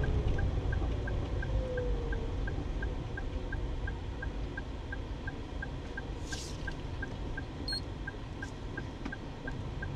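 Car driving slowly in town traffic, heard from inside the cabin: a steady low engine and road rumble, with a faint regular ticking about three times a second and a brief hiss about six seconds in.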